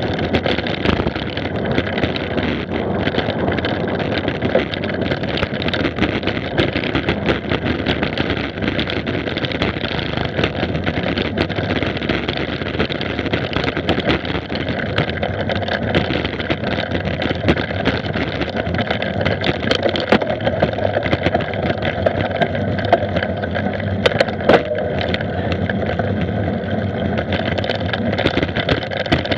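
Mountain bike being ridden fast over a dirt track, heard through a camera on the moving rider: a steady rumble of tyres and wind on the microphone, with constant small clicks and knocks from the bumpy ground.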